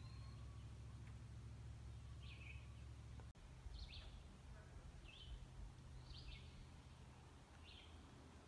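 A quiet outdoor scene: a bird gives short, high, downward-sliding chirps about once a second over a faint low rumble. The rumble drops out for a moment about three seconds in.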